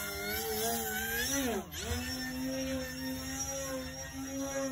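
The 2217 brushless electric motor and propeller of a 39-inch Super Extra RC aerobatic plane, whining in flight. The pitch rises, dips sharply about a second and a half in, then holds steady while the plane hangs nose-up.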